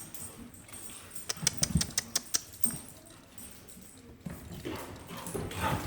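Five-week-old puppies playing in their pen: scuffling, with a quick run of sharp clicks and taps about a second in, then softer scrabbling.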